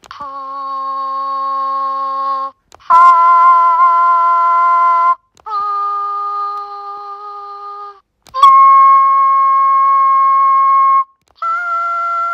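Hatchimals Surprise Peacat (twin B) toy playing its electronic sound lines through its small speaker: five held, steady-pitched calls, each two to three seconds long, with short pauses between them.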